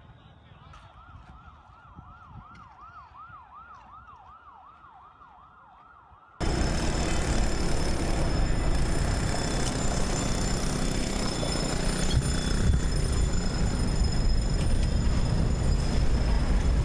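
Emergency vehicle siren in a fast yelp, sweeping up and down about two to three times a second, faint and distant. About six seconds in it cuts off abruptly to a loud, steady rushing noise that holds to the end.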